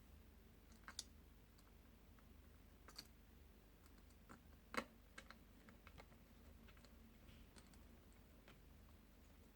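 Faint, scattered small clicks and taps from handling a laptop's internal parts and tools during a fan replacement, with one sharper click a little before halfway, over a low steady hum.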